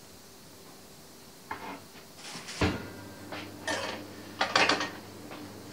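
Metal baking tray clattering and clinking as it is handled, with a string of sharp knocks; the loudest comes about two and a half seconds in, and several quicker clinks follow.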